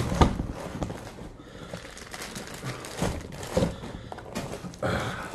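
Knocks and clunks as the door kit's parts and box are handled and set down, with a longer rustling clatter near the end.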